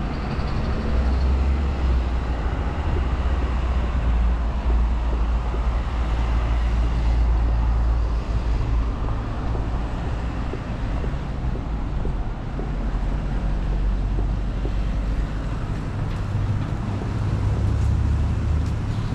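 Steady road-traffic noise: a continuous low rumble of vehicles with an even hiss of tyres, with no single vehicle standing out.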